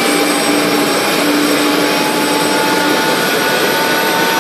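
Aérospatiale SA341G Gazelle helicopter running on the ground, spooled up and about to lift off. Its turboshaft whines steadily in several high tones over a loud, even rush from the rotors. A lower tone drops out about three seconds in.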